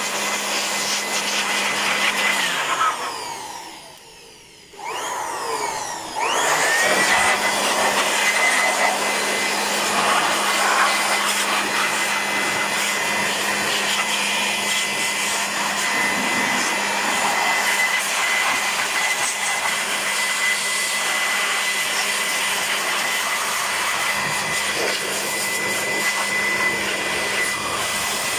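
Handheld electric blower running with a steady whine and rushing air, blowing water out of a freshly washed car engine bay. About two and a half seconds in it is switched off and winds down, then about two seconds later it is switched back on and spins back up to full speed.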